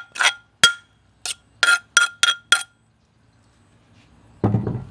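Metal spoon rapping and scraping to knock pounded herb paste out of a mortar into an aluminium mixing bowl: about seven sharp ringing clinks in quick succession, then a duller knock near the end.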